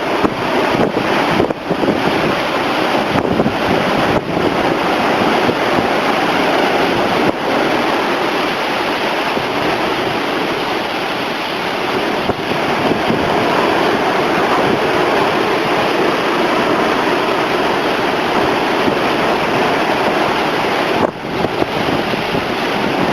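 Heavy hurricane surf breaking continuously on the shore, a dense, steady rush of water, with strong wind buffeting the microphone.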